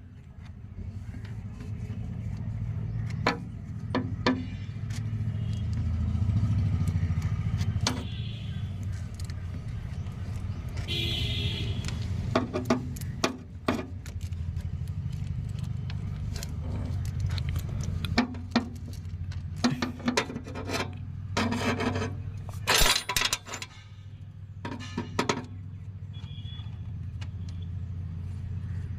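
Spanner work on the nuts of a tractor's brake drum: repeated metallic clicks, clinks and scrapes as the nuts are loosened and tools and nuts are handled, with a louder clattering spell about two thirds of the way in. A steady low rumble runs underneath.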